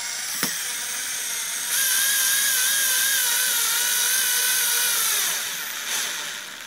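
Power drill-driver on its slow gear driving a thick screw into hardwood: a steady motor whine that gets louder about two seconds in, its pitch wavering under load, then slowing down and fading near the end.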